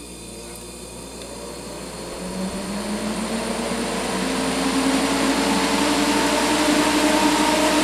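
Vintage Keeper cooling unit starting up: its fans spin up, with a whirring tone that rises steadily in pitch as the rush of air grows louder over several seconds.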